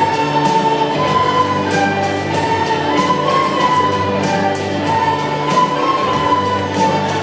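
School recorder ensemble playing a slow piece in long held notes, a melody over a low bass line.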